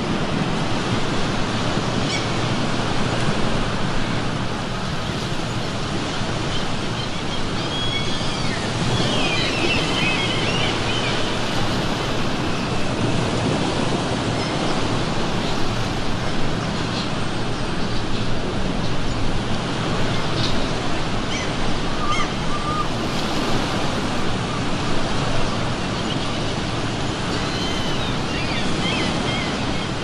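Ocean waves breaking and washing on the shore in a steady rush, with gulls calling now and then above it, most busily about a third of the way in and again near the end.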